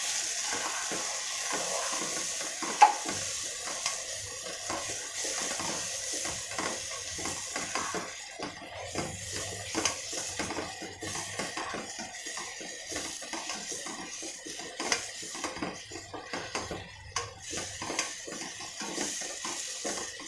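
A spoon stirring and scraping through thick masala in a large nonstick pot, with frequent small knocks against the pot, over a steady sizzle of the simmering mixture. One sharper knock about three seconds in.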